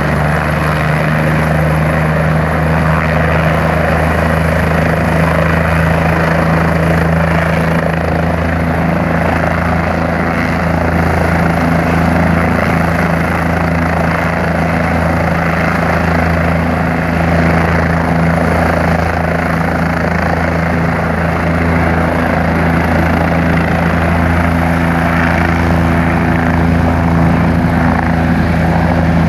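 Medical helicopter's turbine engine and main rotor running on the ground before liftoff: a loud, steady drone.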